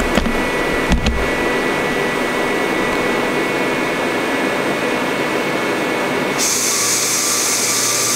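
Steady, loud workshop noise: an even whoosh like a running blower, with a few dull thumps in the first second or so. About six seconds in it suddenly turns hissier and brighter.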